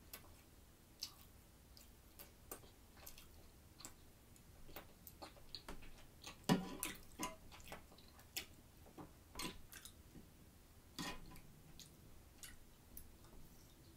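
Faint, close-miked eating sounds: irregular soft clicks and smacks from chewing and from a metal fork picking up food, the loudest about six and a half seconds in.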